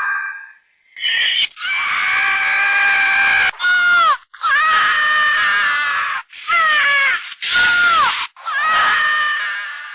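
Scrat's screams, the high-pitched shrieking of a cartoon squirrel voiced by a man: a rapid string of about seven separate shrieks, several ending in a sharp downward drop in pitch.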